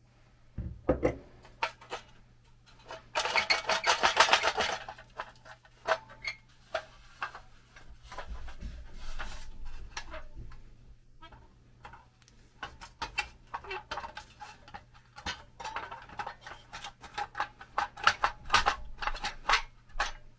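Pressed-steel toy airplane parts being handled and worked: sheet-metal clicks, knocks and clatter, with two spells of rapid metallic rattling, about three seconds in and again from about fifteen seconds in.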